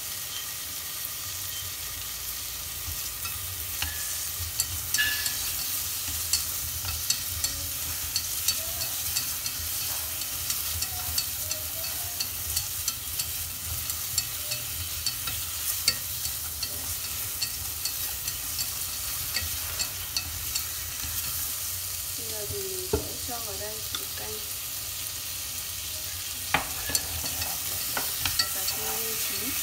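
Tomato wedges and garlic sizzling in oil in a stainless steel pot, fried to draw out the tomatoes' colour. Chopsticks stir them, with frequent short clicks against the pot.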